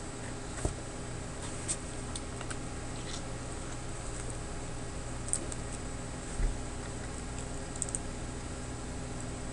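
Sparse, scattered clicks of a computer mouse and keyboard, about eight in all, over a steady low electrical hum.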